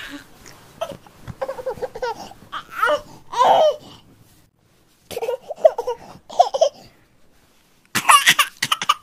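Bursts of human laughter and babbling voice sounds, in three spells with short quiet gaps between them.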